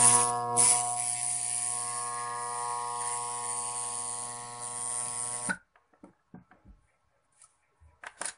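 Armature growler humming while a hacksaw blade laid on the armature's core chatters and buzzes against it, a sign of a shorted coil or shorted commutator in the armature. The hum and buzz cut off suddenly about halfway through. Faint handling clicks follow, with a couple of sharper knocks near the end.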